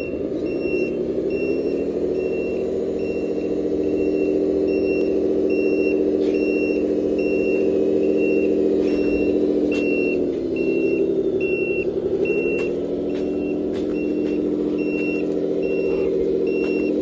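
Simulated diesel truck engine from a 1/14-scale LESU 8x8 RC dump truck's sound unit, running steadily with a dip in pitch about ten seconds in before it picks up again. A high reversing beep sounds about twice a second throughout.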